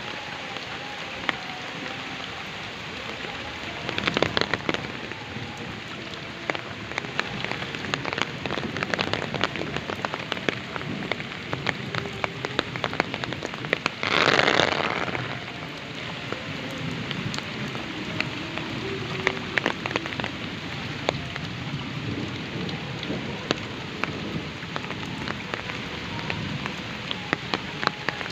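Heavy rain falling steadily, with many close drops ticking. A short louder rush comes about four seconds in, and a stronger one lasting about a second comes near the middle.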